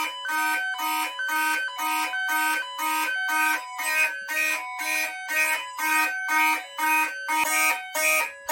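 Fire alarm horns, including a Gentex Commander 3 mechanical horn, pulsing in march time at about two blasts a second, over voice-evacuation speakers sounding an alternating high-low tone: a fire drill sounding on a Notifier NFS2-640 system.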